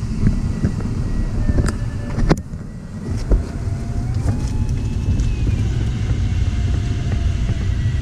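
Air rushing over the LS4 glider's cockpit gives a steady low rumble of wind noise. Two sharp clicks come around two seconds in. From about three seconds in, a thin electronic variometer tone slides slowly up and down in pitch.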